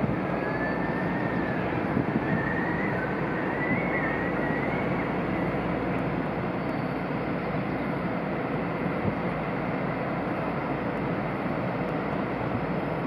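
Steady low rumble and rushing of churned water as the cruise ship Celebrity Eclipse's bow thrusters push it away from the pier. A faint wavering whistle rides over it for the first few seconds.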